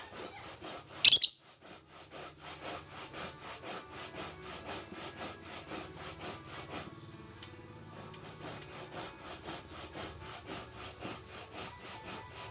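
Lovebird chattering in a long, even run of rasping strokes, about four to five a second, with one loud, sharp, high shriek about a second in.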